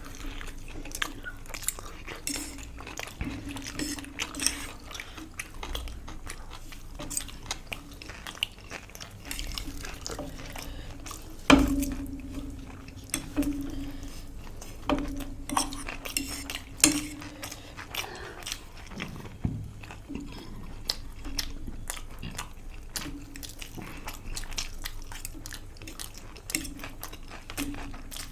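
Eating sounds: cutlery clinking and scraping on plates amid chewing and biting of food, with one louder knock partway through.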